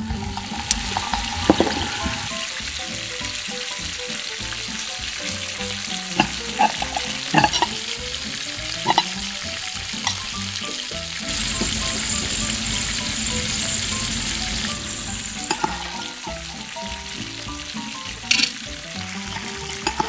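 Small dough triangles for tortilla chips deep-frying in hot oil in a miniature steel wok: a steady sizzle that grows louder for a few seconds in the middle. A handful of sharp clinks from the metal skimmer striking the pan as the chips are stirred.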